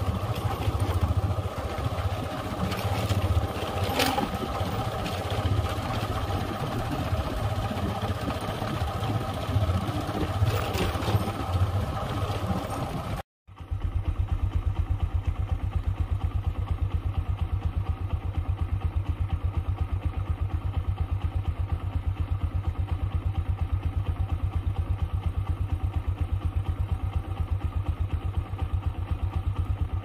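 A vehicle engine running as it travels along a rough dirt track. After a sudden cut about 13 seconds in, an engine idles with a steady, even low pulse.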